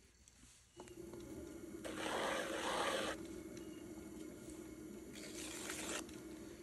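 Electric pottery wheel motor coming up about a second in and running with a steady hum. Over it, twice, a short wet scraping as a wooden rib works the wet clay at the base of a mug on the spinning wheelhead.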